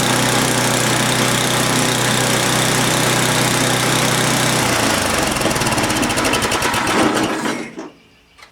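Small single-cylinder engine of an old Craftsman snowblower running steadily, with the fresh carburetor fitted, then slowing after about four and a half seconds, its firing beats spreading out until it dies away about seven and a half seconds in. Shut off while running sound and well.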